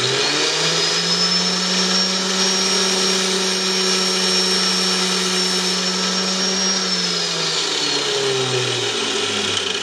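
Angle grinder with a diamond wheel spinning up and running with a steady high whine while a tungsten electrode, turned in a cordless drill, is ground to a point against the wheel. The whine falls away as the grinder winds down near the end.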